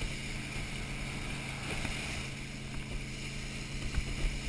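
Motorboat engine running steadily while towing wakeboarders, with a constant rush of wind and water noise on the microphone.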